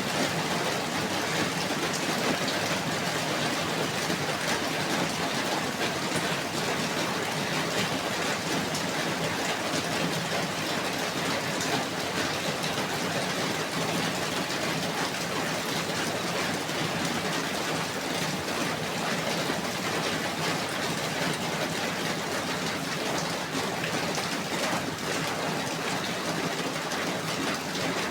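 Steady rainfall, an even hiss with fine pattering of drops.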